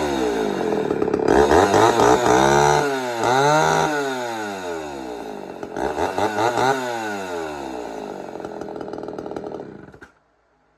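Two Homelite Super XL two-stroke chainsaws, a 16-inch and a 20-inch, running together. Their engine pitches fall and rise several times, crossing one another. Both fade and then cut off suddenly near the end.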